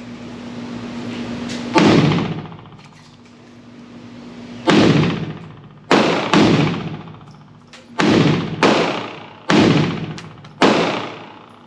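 Pioneer Arms Hellpup 7.62x39 AK-pattern pistol fired single shot at a time: about eight loud shots at uneven intervals, some in quick pairs, each trailing off in an echo.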